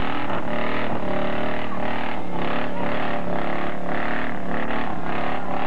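Truck engine running hard at steady high revs, with a regular pulsing about twice a second.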